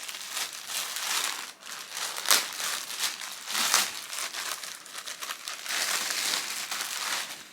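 Packaging crinkling and rustling as items are handled and pulled out, with a sharper crackle a little over two seconds in.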